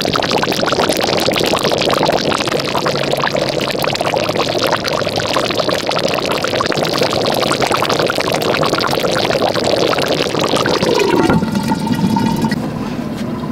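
Stew bubbling and simmering in a clay pot, a dense crackling bubbling. About eleven seconds in the sound drops in pitch and gives way to a lower, steadier hum.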